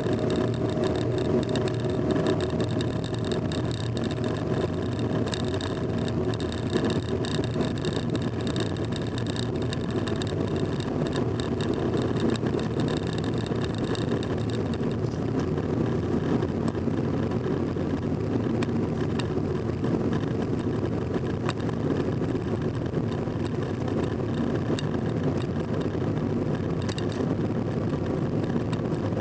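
Car driving at a steady speed on a paved road, heard from inside the cabin: an even engine and tyre rumble, with light high ticking through the first half.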